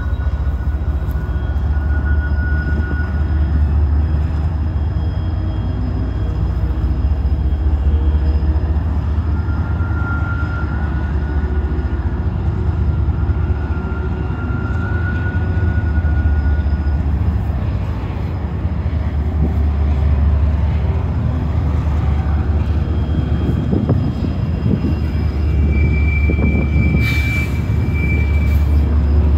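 Diesel locomotives running, a loud, steady low rumble.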